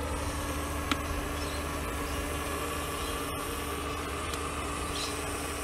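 Steady hiss and low rumble from a miniature live-steam locomotive raising steam, with one faint click about a second in.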